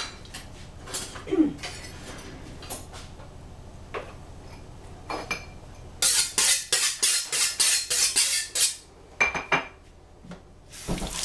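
Kitchen dishes and utensils clinking and knocking, with a quick run of a dozen or so sharp clicks about six seconds in.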